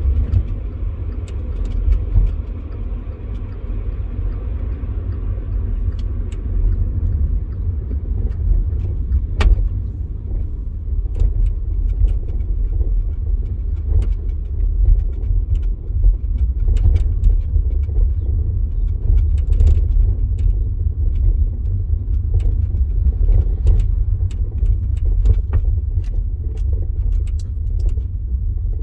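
VW e-Up electric car driving, with a steady low road rumble and many short, irregular knocks and rattles, noises the owner suspects come from the rear axle.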